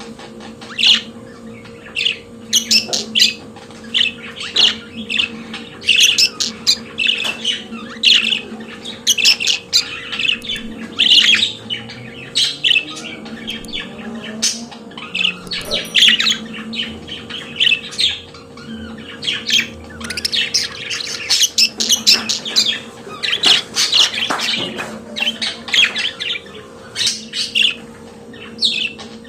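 Budgerigars warbling and chattering: a dense, continuous stream of rapid chirps, clicks and squawks, over a faint steady hum.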